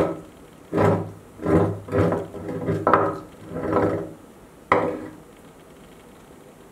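Metal parts of a meat grinder scraping against the barrel as the cutting plate and screw auger are pulled out, in about seven short grating scrapes that stop about five seconds in.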